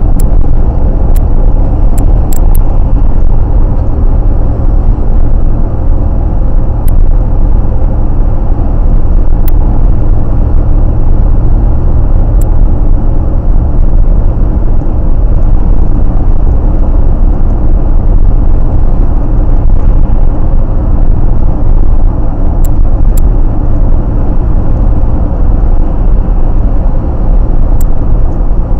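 Steady, loud low rumble of road and engine noise inside a car cruising at highway speed, as picked up by a dashcam. A few faint ticks sound over it.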